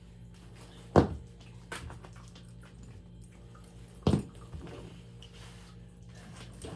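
Two dull thumps about three seconds apart, over a low steady hum.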